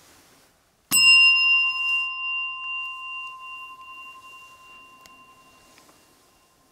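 A chrome service bell (desk bell) struck once, its bright ring fading slowly over about five seconds. A short sharp click comes at the very end.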